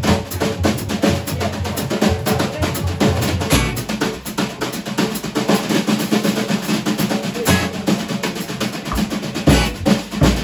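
Instrumental live music from an acoustic guitar and a small drum kit: strummed guitar chords under busy snare drum playing, with occasional bass drum hits and cymbal.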